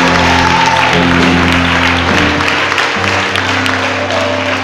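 Live church band music with sustained chords that change twice, with the congregation clapping their hands loudly over it.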